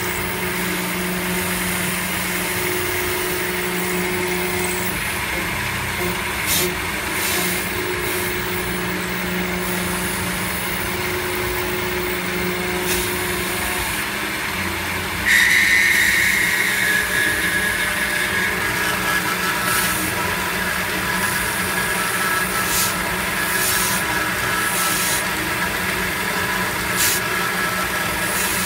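CNC mill end mill cutting an aluminium block under flood coolant: a steady spindle hum and cutting noise with the hiss and spatter of coolant and chips. About halfway through, the cut turns louder with a high ringing whine that holds to the end.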